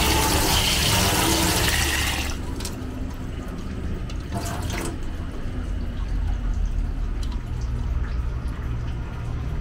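Tap water running into a small metal pot holding eggs, filling it, then shutting off about two seconds in. After that only a steady low rumble remains, with a couple of faint knocks as the pot is handled.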